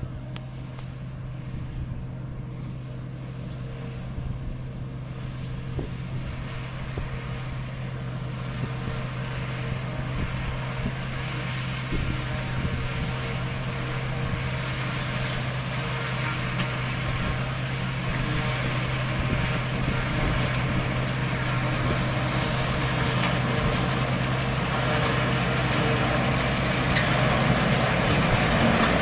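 New Idea 801 Uni-System power unit with an 868 forage chopper running while chopping alfalfa. It makes a steady mechanical drone over a constant low hum, growing steadily louder as the machine comes closer.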